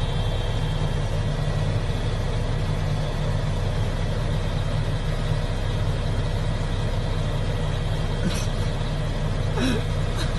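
A steady low mechanical drone, as of a large engine running at a constant speed, with a couple of faint brief sounds near the end.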